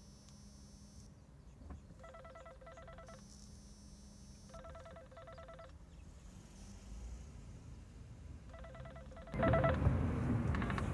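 A phone's electronic ringtone: short bursts of a fast trilling tone alternating with a higher tone, repeating several times. Near the end a much louder rushing noise starts.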